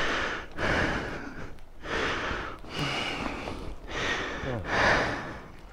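Heavy, rapid breathing with a few short grunts, about one breath a second, from riders straining to lift a fallen motorcycle.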